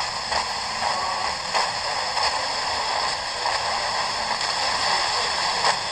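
Steady FM static hiss from an XHDATA portable radio's speaker as it is tuned on a weak station, with no programme coming through: the reception is too weak for the set to lock on.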